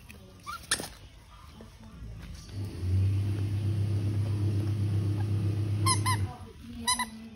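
A steady engine hum, starting about three seconds in and stopping sharply about a second before the end. Short high squeaks come twice near the end.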